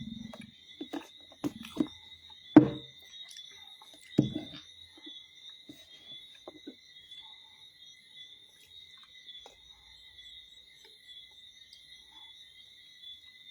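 Steady high-pitched chirring of insects, with a few sharp knocks and clicks in the first few seconds, the loudest about two and a half seconds in.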